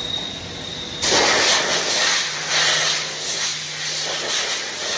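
Compressed air blowing in a loud, steady hiss, starting abruptly about a second in, typical of an air gun clearing chips and coolant off a machined part before it is measured.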